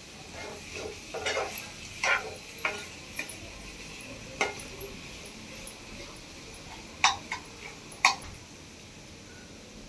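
Metal spatula scraping and knocking against a non-stick frying pan as diced raw banana and onion paste are stirred, a handful of sharp clicks and scrapes, the loudest two about seven and eight seconds in. A faint steady hiss of frying runs underneath.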